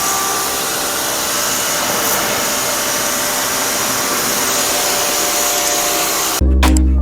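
Electric pressure washer running steadily, its high-pressure water jet spraying with a constant hiss over the motor's hum. About six seconds in it cuts off suddenly and loud electronic music with a beat takes over.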